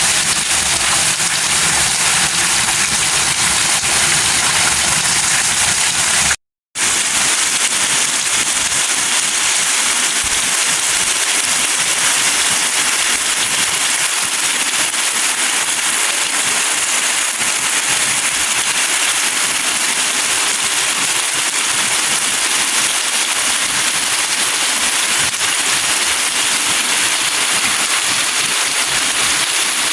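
Steady rain falling, a loud, even hiss of drops. It cuts out completely for a moment about six seconds in, then resumes with less low rumble underneath.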